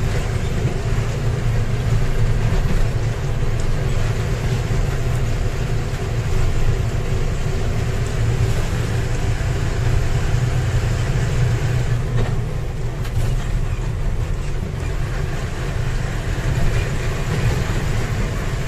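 Steady engine and road noise heard from inside a moving vehicle, mostly low-pitched and unbroken.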